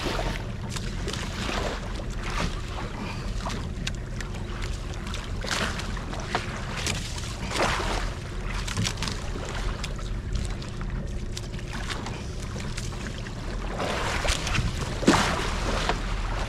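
Small fishing boat's engine running steadily under wind noise on the microphone, with irregular sloshing and rustling bursts, the loudest about fifteen seconds in.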